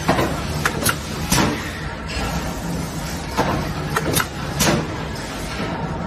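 A metal-forming press runs with a steady low hum while it forms a centrifugal fan impeller. Sharp metallic knocks come at uneven intervals, about a dozen of them, the loudest near the start, about a second and a half in, and in the middle.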